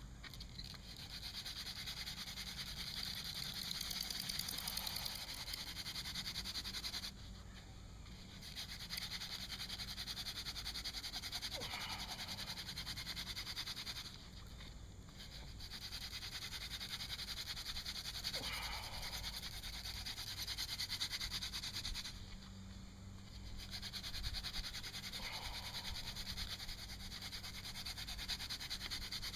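Mullein stalk spindle being spun by hand against a box elder hearth board: a continuous dry rubbing and scraping from wood grinding on wood. It comes in long bouts with short breaks about 7, 14 and 22 seconds in, as the hands go back to the top of the spindle.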